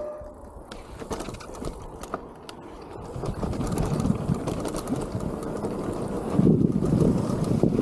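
Wind rushing over a helmet-mounted action camera's microphone as a mountain bike rolls slowly down a dirt and rock trail, with scattered clicks and rattles from the tyres and bike. The rumble is softer for the first few seconds and grows louder from about six seconds in.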